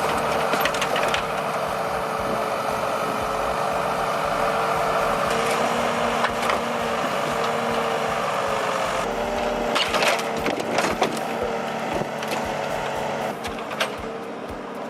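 Chainsaw running steadily at high revs through a cut, with several sharp wood cracks in the middle; its pitch shifts about two-thirds of the way through.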